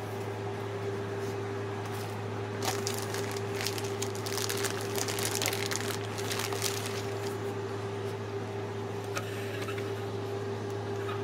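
Clear plastic packaging bag and paper mailer crinkling and rustling as they are handled, in a flurry of crackles through the middle few seconds, over a steady low hum.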